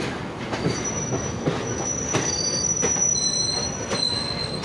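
Container freight train wagons passing close by: steady rumble of the wheels, sharp knocks as they cross rail joints, and high-pitched wheel squeal that starts about a second in and shifts pitch near the end.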